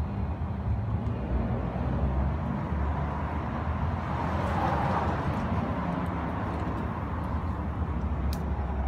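Steady low rumble of road traffic, swelling and fading in the middle as a vehicle passes. A single sharp click comes near the end.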